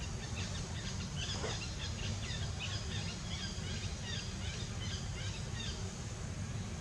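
Birds chirping: a quick run of short, high chirps that stops near the end, over a steady low rumble.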